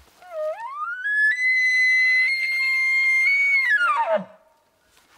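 Elk bugle blown on a hunter's bugle tube call. One long call glides up from a low note to a high, whistling pitch, holds there for a couple of seconds, then falls away into a low grunt near the end.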